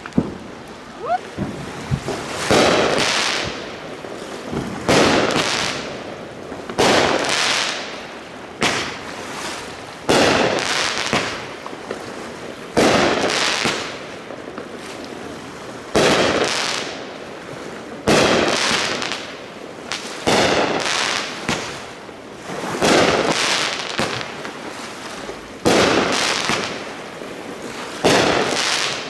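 Aerial fireworks going off one after another, about every two to three seconds, about a dozen in all: each a sharp bang followed by a rushing, sizzling tail that fades over about a second.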